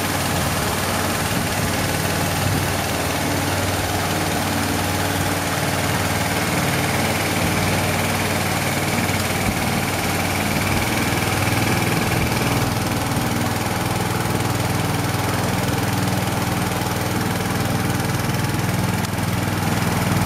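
A small boat's engine running steadily, a constant low hum, with the boat under way on the river.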